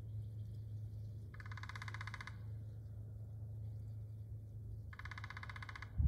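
A woodpecker gives two rapid, rattling bursts, each about a second long and three to four seconds apart.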